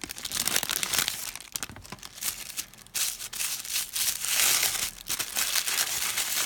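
Packaging being crinkled and torn open by hand to unwrap a heavy item (a belt buckle), in irregular rustling crackles with a quieter spell about two seconds in.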